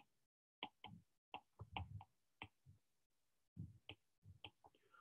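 Near silence broken by a dozen or so faint, irregular light taps and clicks of a stylus writing on a tablet.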